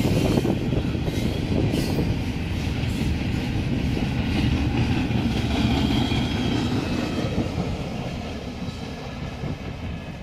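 Norfolk Southern intermodal freight train's double-stack container cars rolling past, steel wheels on rail making a steady rumble with a few sharp clicks in the first couple of seconds. The sound fades over the last few seconds as the end of the train goes by.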